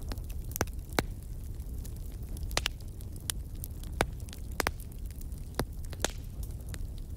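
Steady low hum with scattered sharp clicks and crackles.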